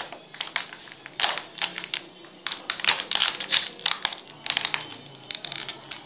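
Thin plastic water bottle crackling and popping in quick, irregular clusters of clicks as it is squeezed and buckles while water is chugged from it.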